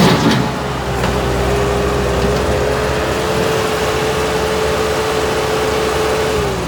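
Bobcat S300 skid-steer loader's diesel engine running steadily, with a steady whine over the low engine note; the whine dips slightly in pitch and the sound eases a little near the end.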